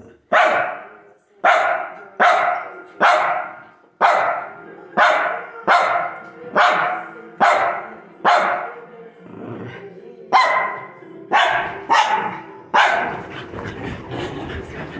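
Small dog barking over and over, sharp barks a little more than one a second, stopping about two seconds before the end.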